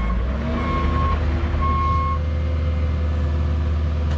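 Cat 306 mini excavator's diesel engine running steadily while its travel alarm beeps about once a second, the beeping stopping about two seconds in.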